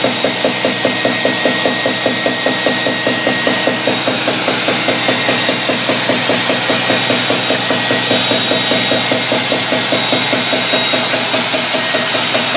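Action Micron Mill wave table running, its drive shaking the deck with a steady rhythmic knocking of about three strokes a second, over a thin steady whine.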